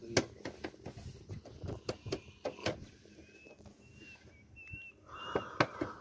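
Scattered light clicks and knocks, with a few short high chirps in the middle and a steady hiss starting about five seconds in.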